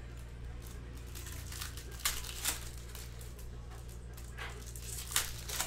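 Baseball card-pack wrappers crinkling and cards being handled and shuffled, in short sharp bursts about two seconds in, around four and a half seconds, and twice near the end, over a steady low hum.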